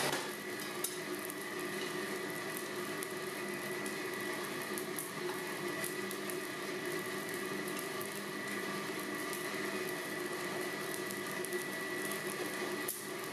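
Blacksmith's forge running: a steady rushing hiss with a thin high whine and a few faint clicks.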